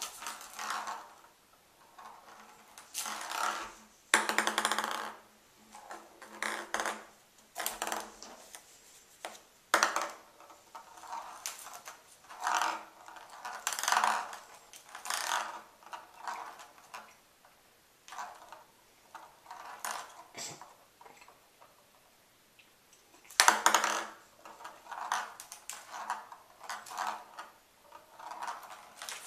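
Ping pong ball batted around a bathtub by a Bengal kitten: irregular clattering and rolling rattles of the light ball against the tub's hard surface, with short pauses between. The loudest clatter comes a little over two-thirds of the way through.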